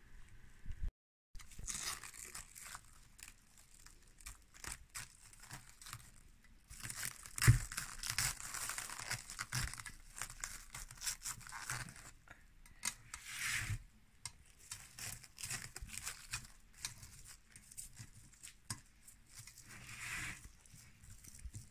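Plastic cling film crinkling and rustling in irregular bursts as it is handled around a loaf pan, with one sharp knock about seven seconds in.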